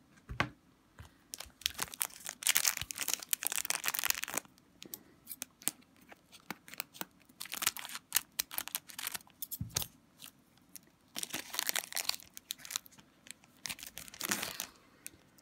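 Foil wrapper of an Upper Deck Portfolio hockey card pack being torn open and crinkled in the hands, in several separate bursts of rustling and tearing with short quiet gaps between them.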